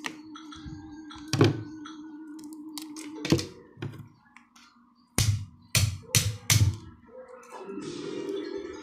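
Dull knocks and thumps, one about a second in, another past three seconds, then four in quick succession around five to seven seconds in, over a faint steady hum.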